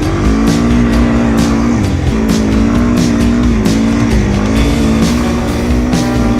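Rock music with a steady drum beat, over a four-wheeler's engine revving up and down every couple of seconds.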